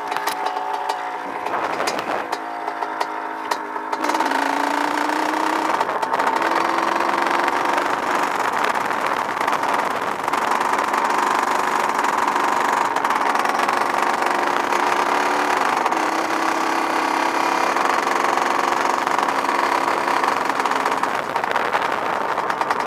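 Dirt bike engine running while riding. It is quieter with some clicks and knocks for the first few seconds. About four seconds in it gets louder, and the engine note climbs in pitch several times as the bike picks up revs.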